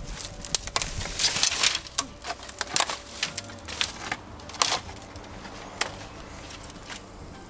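Dry ivy and dead twigs crackling and rustling as they are pulled out of an overgrown wall by hand. A dense run of sharp snaps and rustling over the first three seconds, then a few single snaps, quieter near the end.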